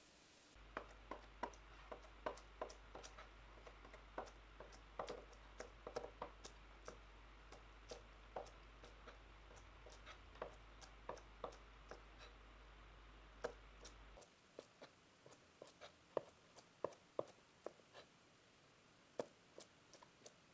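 Light, irregular taps and clicks, a few a second, over a faint low hum that cuts off about fourteen seconds in; after that the taps are sparser.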